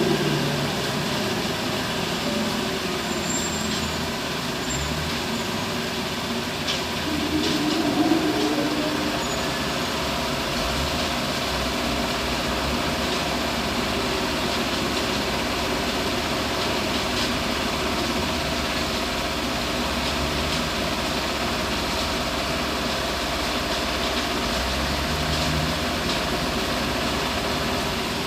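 Heavy diesel machinery, an excavator working beside a dump truck, running steadily. The engine rises in pitch about eight seconds in, then holds a steady drone.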